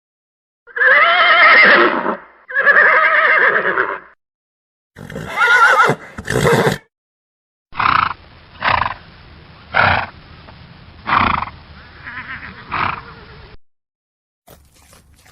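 Horse neighing: two long, wavering whinnies, then a shorter whinny about five seconds in. After that come six short, sharp bursts about a second apart over a steady hiss.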